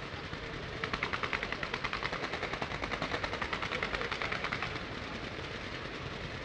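Aerial fireworks going off in a rapid, even string of pops, about ten a second, starting about a second in and easing off near five seconds, over a steady background rumble.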